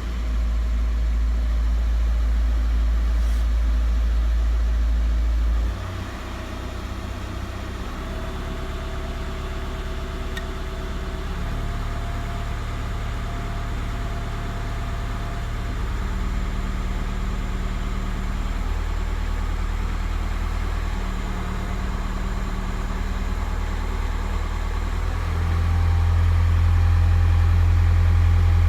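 Skoda Octavia A5's 1.9 TDI four-cylinder pump-injector diesel engine idling steadily, the engine with the knock the owner is trying to track down. Its sound drops in level about six seconds in and grows louder again near the end.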